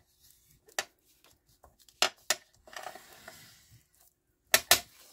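Paper being folded and creased with a bone folder on a cutting mat: a rubbing, sliding sweep of about a second in the middle, and several sharp clicks, the loudest a close pair near the end.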